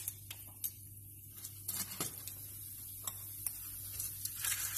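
Hot oil sizzling softly around split urad dal (black gram) and mustard seeds in a frying pan, with scattered small pops and crackles.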